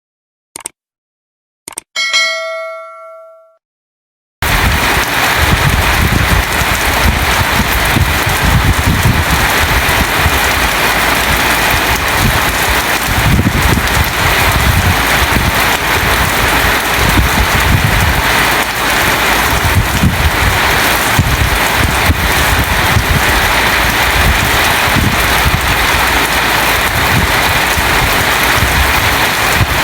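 A short bell-like chime rings and fades, then a few seconds in steady, heavy rain noise cuts in abruptly and carries on evenly.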